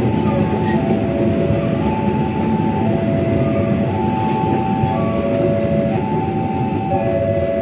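Passenger train coaches rolling past on the rails with a steady low rumble of wheels. Over it, a level-crossing warning alarm plays a falling run of chime notes that starts over about every two seconds.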